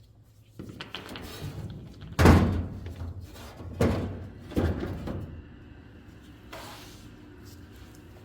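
Three heavy thuds with a short ringing after each: the first and loudest about two seconds in, the next two a second and a half and two seconds later, amid rustling and knocking handling noise.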